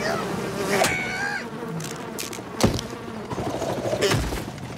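Cartoon swarm of bees buzzing, with a brief pitched cry about a second in and two sharp impact hits, one near the middle and one near the end.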